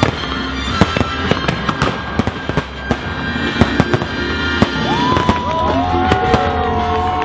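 Aerial fireworks bursting and crackling in quick succession over the show's accompanying music. From about five seconds in, the crowd cheers over it.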